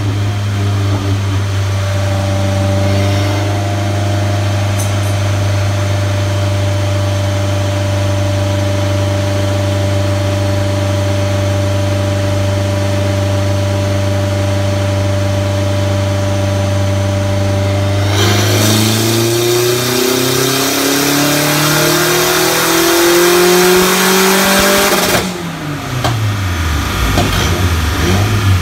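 Nissan 240SX's turbocharged KA24DET four-cylinder running on a chassis dyno: it holds a steady speed in gear, then about 18 seconds in a full-throttle dyno pull, louder and rising in pitch for about seven seconds. At about 25 seconds the throttle closes sharply and the pitch falls as engine and rollers coast down.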